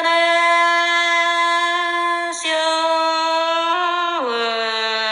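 A single voice singing an Iu Mien folk song, holding one long drawn-out vowel note. There is a brief break about two and a half seconds in, then a second long note that slides down in pitch near the end.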